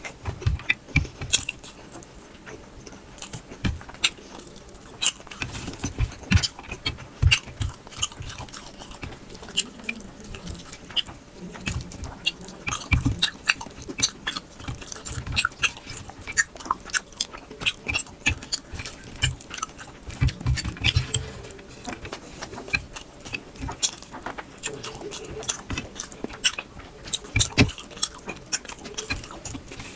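Close-miked eating: wet chewing and lip smacks as someone eats rice and curry by mouthful, with frequent short clicks and smacks.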